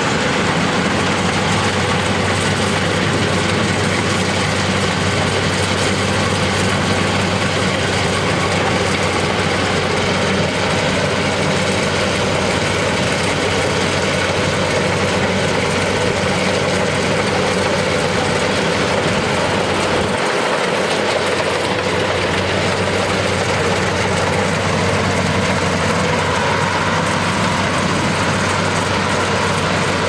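LOVOL RG108 combine harvester's diesel engine running steadily under load while the machine cuts rice, a constant engine hum under a broad mechanical rush from the working header and threshing gear.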